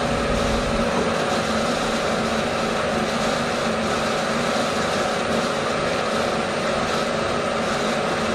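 Vertical milling machine's spindle running steadily with an edge finder in it, a constant motor hum with a steady whine.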